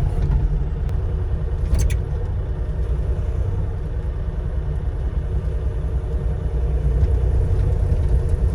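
Bobcat E35 mini excavator's diesel engine running steadily with a low rumble, with a brief click about two seconds in.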